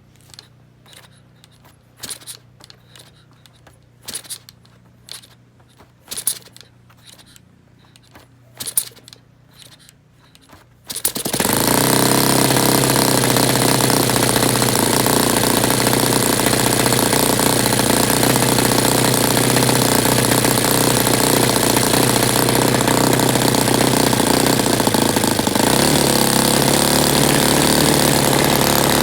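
A series of sharp, irregular clicks and knocks, then a Saito FA-120S four-stroke glow model aircraft engine catches about eleven seconds in and runs loudly and steadily, with a slight change in its note near the end.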